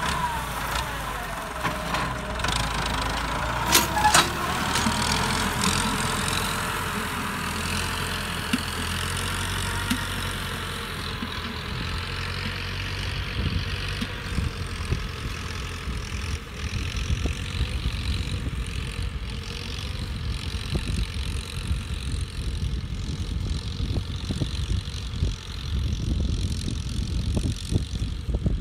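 Tractor engine running under load as it pulls a disc plough through dry field soil, with a few sharp metallic clicks about four seconds in. The engine sound grows duller and more distant as the tractor moves away.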